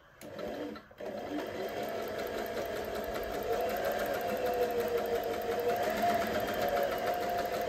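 Usha Janome Marvela electric sewing machine stitching fabric. It gives a short burst just after the start, then from about a second in runs steadily with a rapid, even needle rhythm over the motor.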